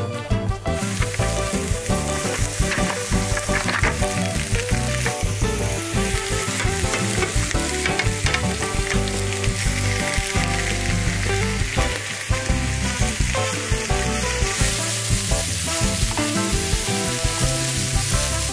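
Stir-fry vegetables (peppers, mushrooms, cauliflower, broccoli) sizzling in a hot frying pan, starting about a second in.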